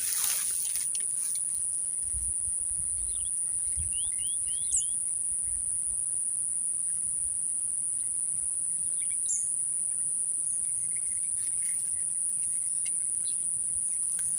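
Steady high-pitched drone of insects, with a quick run of four short rising bird chirps about four seconds in and a few faint chirps later.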